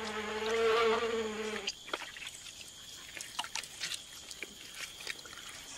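A flying insect buzzing as it hovers, a steady droning hum that cuts off about a second and a half in. After that come quieter background sounds, with scattered sharp clicks over a faint steady high tone.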